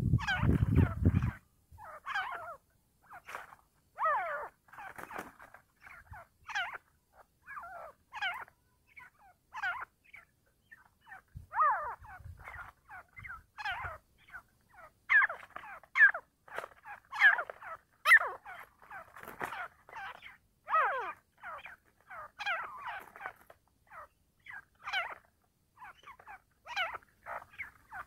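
Grey francolin (teetar) calling: a long run of short, sharp call notes, about one or two a second, many of them sliding in pitch. A loud low rumble fills the first second or so.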